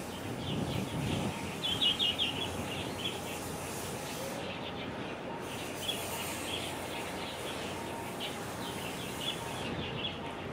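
Small birds chirping in quick repeated notes over a steady low background noise.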